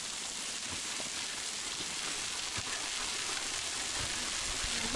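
Waterfall splashing close by: a steady, even hiss of falling water that grows slightly louder.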